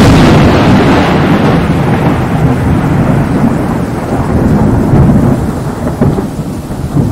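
Thunderstorm: loud rolling thunder with a rush of rain that starts abruptly, rumbles on continuously, and eases off near the end.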